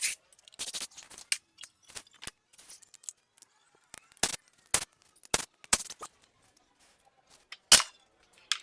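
Irregular sharp metallic clicks and knocks of hand tools and parts being worked on an engine during teardown. The sharpest knock comes a little before the end.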